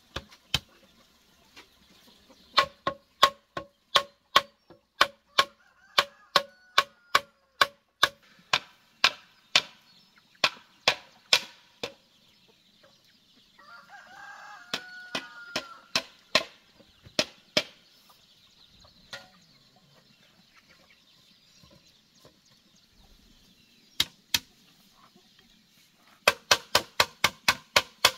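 Repeated blows on hollow green bamboo poles, each a ringing knock, about two to three a second, as the joints of a bamboo frame are struck. In the middle a rooster crows once, and a quicker run of blows starts near the end.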